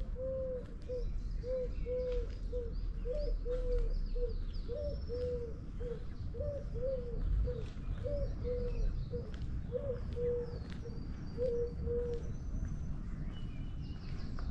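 A dove cooing, a run of low notes repeated in phrase after phrase that stops about twelve seconds in, with small birds chirping faintly above it.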